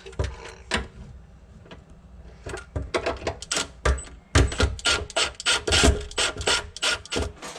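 Hand tool scraping or rasping in quick repeated strokes, about three a second, starting a couple of seconds in after a few lighter scrapes.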